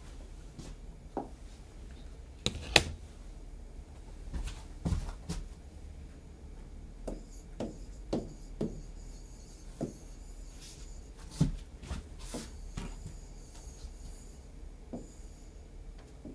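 Stylus tapping and scraping on the glass of an interactive touchscreen display while writing and drawing lines: scattered light taps, with scratchy pen strokes in the second half.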